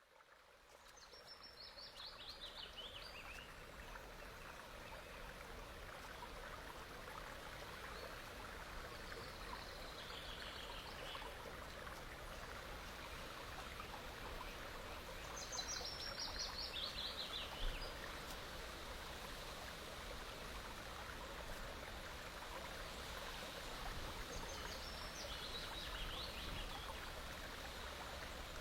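Steady rushing water like a stream, fading in at the start. A bird sings a short descending phrase of high notes four times over it.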